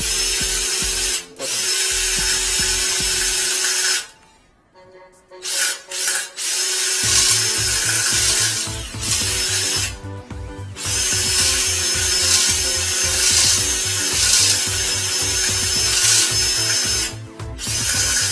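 Cordless drill spinning a flexible-shaft drain-cleaning cable down a clogged toilet's trap. It runs in long stretches, stopping for about a second and a half about four seconds in and briefly around ten and seventeen seconds.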